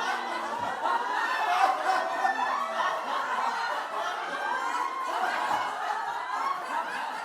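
A group of people laughing, several voices overlapping without a break.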